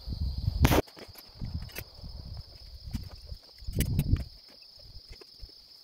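Insects keep up a steady high-pitched chirring. A low rumble on the microphone stops with a sharp click under a second in; faint clicks and a brief low rumble follow about 4 s in.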